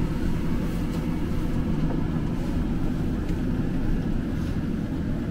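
Seoul Metro Line 2 subway train running: a steady low rumble.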